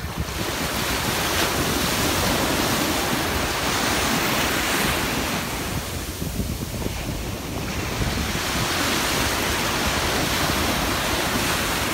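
Ocean surf washing onto the beach, with wind on the microphone. The wash swells, eases about six seconds in, then swells again.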